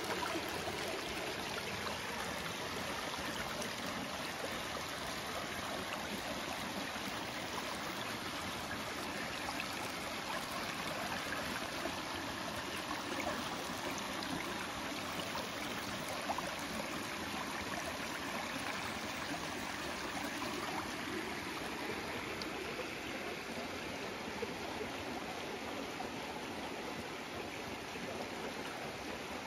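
Shallow stream water running over rocks, a steady rushing without break.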